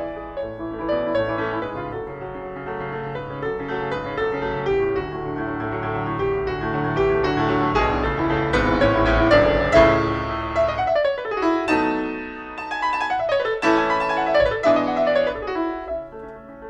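Background piano music, classical in style, with quick runs of notes, a few of which fall in pitch near the middle.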